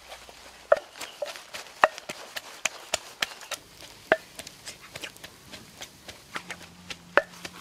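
Wood fire of dry sticks crackling, with irregular sharp pops and snaps and a few louder cracks.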